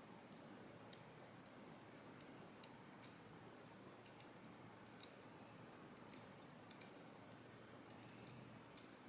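Small, sharp metal clicks and taps, irregular, from the pins and springs of a Kaba Gemini lock being worked out of the cylinder during disassembly.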